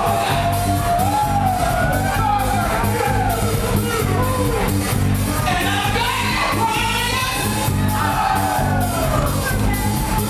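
Live house music: a male vocalist sings sliding, melismatic phrases into a microphone over a steady, bass-heavy beat, amplified through a PA.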